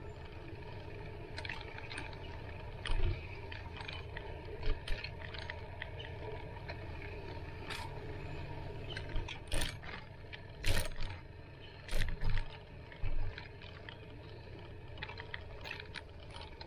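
Bicycle riding over a bumpy dirt path: steady tyre rumble with light clicking and rattling, and a run of sharper knocks in the middle as the bike jolts over the ground.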